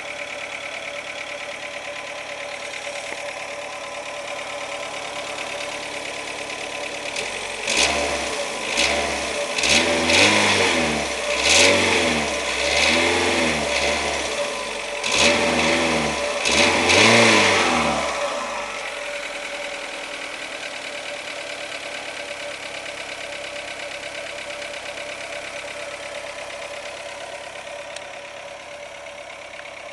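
Renault Logan 1.6 8-valve four-cylinder petrol engine idling, then revved up and down in a series of short blips for about ten seconds before settling back to idle. The engine has a knock that the owner cannot diagnose.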